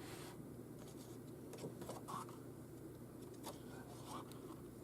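Faint handling of paper and cardstock album pages: a few soft brushes and light taps over a low room hum.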